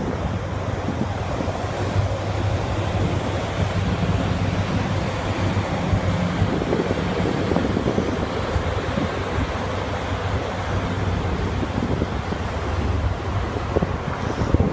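Wind buffeting the microphone over the rush of water from a passing tanker's bow wave and wake, with a steady low hum underneath.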